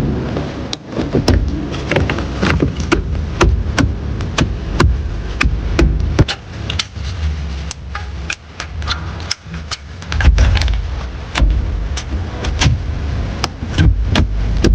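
Workshop clatter of car parts and tools being handled during reassembly: many sharp, irregular knocks and clicks, with a steady low hum underneath.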